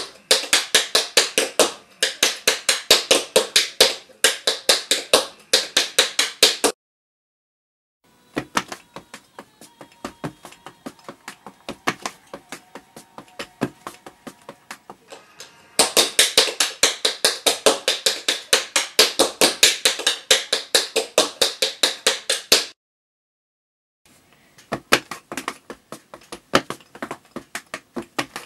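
Tap shoes' metal taps striking the floor in rapid rhythmic runs of steps. A loud, fast run, a quieter run, then another loud, fast run and a shorter one, broken by two sudden cuts to silence.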